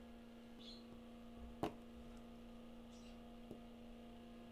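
Battery spot welder firing through hand-held spot-welding rods onto 0.2 mm nickel strip: one sharp snap about a second and a half in, with a fainter tick later, over a steady low hum.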